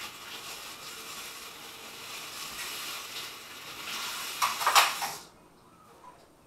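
A steady hiss that stops abruptly about five seconds in, with a few loud clatters just before it ends.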